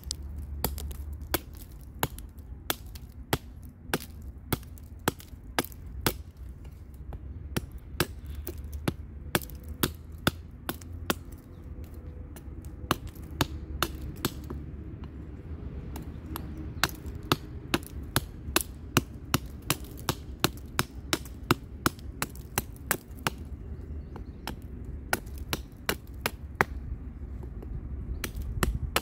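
Knife blade of a Kubey 269 (12 cm, flat grind) chopping machete-style into a thin upright wooden branch: a steady series of sharp knocks, about two a second.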